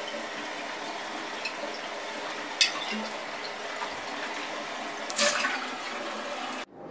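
Bathroom sink tap running steadily, with a sharp click about two and a half seconds in and a brief louder splash around five seconds in. The water sound cuts off abruptly near the end.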